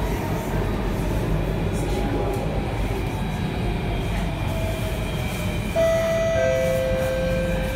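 Alstom Metropolis C830 metro train running through a tunnel, heard from inside the car: a steady rumble of wheels on rail. About six seconds in, a steady electric whine from the traction equipment joins it and drops a step lower in pitch.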